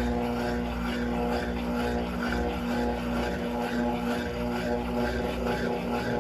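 Electrolux LTC15 top-loading washing machine running, its motor giving a steady hum with a held tone.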